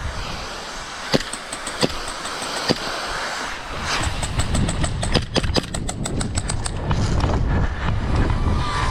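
Airsoft gunfire: three sharp single cracks in the first three seconds, then a rapid string of shots about halfway in, over a low rumble.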